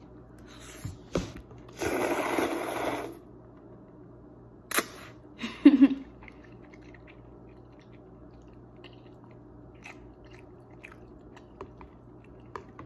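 A person slurping a forkful of Korean black bean noodles, a loud sucking hiss lasting about a second, then chewing with wet mouth clicks and smacks.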